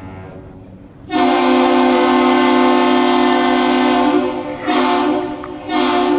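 Air horn of the Duluth Aerial Lift Bridge sounding the captain's salute: one long blast of about three seconds, then two short blasts. This is the salute returned to an arriving Great Lakes freighter.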